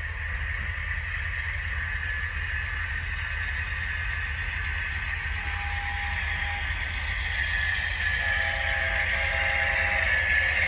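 HO-scale model locomotive running on the layout, a steady motor-and-gear whine that grows louder as the train approaches, over a constant low hum. Brief steady tones sound twice, near the middle and in the second half.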